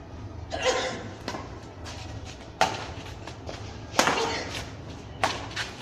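Badminton rally: three sharp cracks of rackets striking the shuttlecock, a little over a second apart, after a brief burst of sound near the start, over a steady low hum.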